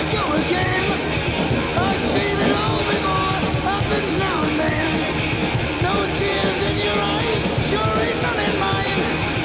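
Rock music with singing, played loudly and continuously.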